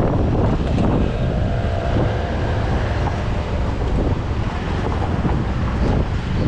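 Wind buffeting the microphone while riding a Yamaha RayZR 125 scooter, steady and loud, with the scooter's engine and road noise running underneath. No rattle is heard from the front panel, which the service centre has repaired.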